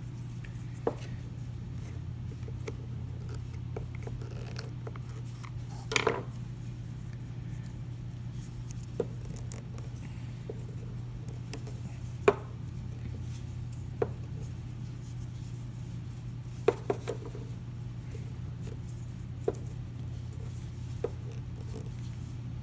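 Scattered sharp clicks and taps of a plastic car key fob being handled and pressed, about nine in all, the loudest a quick cluster about six seconds in, over a steady low hum.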